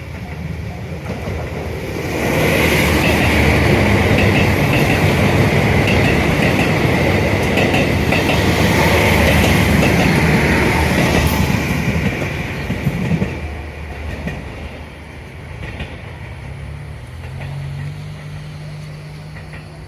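KiHa 72 series diesel railcar train passing close by, its engines and wheels on the rails making a loud, rumbling clatter. It swells about two seconds in, stays loud for about ten seconds, then fades away.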